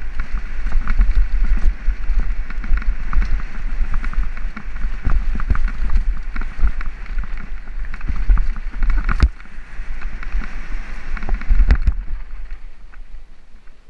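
Wind buffeting an action camera's microphone during a fast mountain-bike descent on a dirt trail, with tyre rumble and the bike rattling over bumps. There are sharp knocks now and then, two of them louder late on, and the noise dies down near the end.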